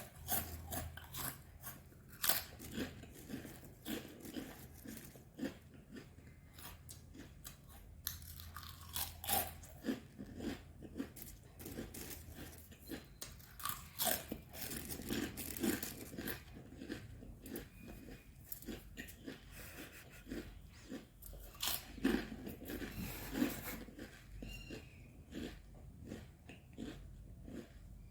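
A person biting into and chewing crunchy chips, with repeated irregular crunches throughout.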